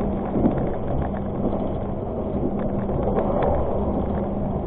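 Passenger train running on the rails, heard from inside the carriage: a steady rumble with a steady hum, and a few light clicks about three seconds in.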